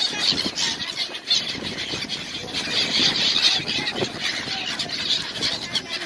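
A flock of gulls calling, many high squealing cries overlapping, over a steady low background noise.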